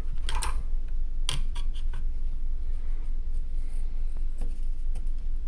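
Light clicks and scrapes of small laptop parts being handled by hand as the heatsink cooler is moved out of the way of the CPU socket: a few short sharp ticks, a cluster of them just over a second in and one near the end, over a steady low hum.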